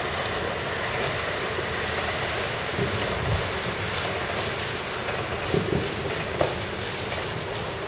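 A small firework spraying sparks with a steady hiss, with a few faint knocks partway through.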